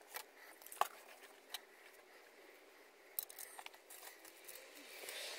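Faint handling noises at a workbench: a few sharp light clicks and taps, then a soft rubbing noise that grows near the end.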